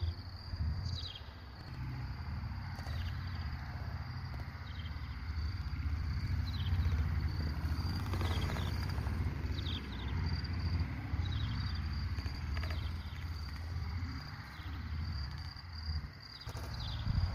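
Outdoor ambience: a fluctuating low rumble of wind buffeting the microphone, with faint short high-pitched chirps repeating every second or so.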